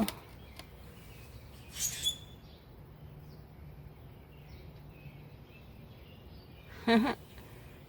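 Adult songbirds calling around a grounded fledgling: a harsh, high squawk about two seconds in, a few faint chirps, and a short, louder call near the end.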